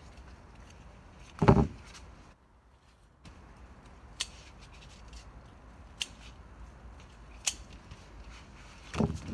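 Tomato harvesting at a plastic crate: sharp clicks of harvest shears snipping, three times a second or two apart, and two dull thumps on the crate, the louder one about a second and a half in and another near the end.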